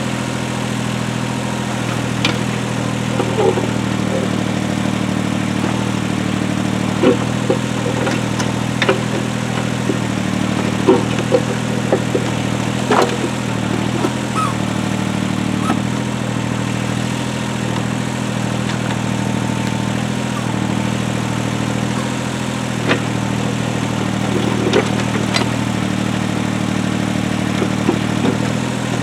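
Heavy-equipment engine running steadily at an even speed, with scattered sharp knocks and clanks from the work.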